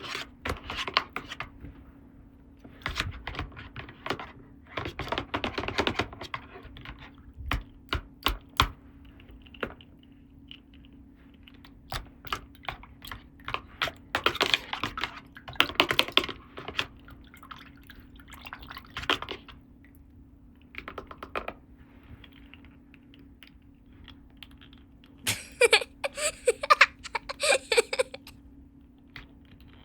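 Small plastic toy pieces being handled, giving irregular clicks and taps, with a louder run of rapid clattering clicks about 25 seconds in. A faint steady hum runs underneath.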